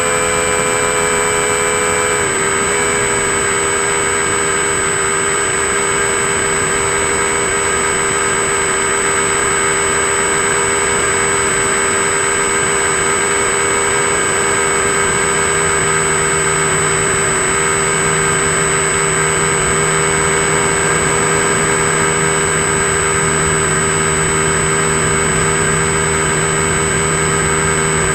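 RC model plane's motor and propeller running steadily in flight, a held whine with a slight drop in pitch about two seconds in, over a rush of airflow, heard from a camera mounted on the plane.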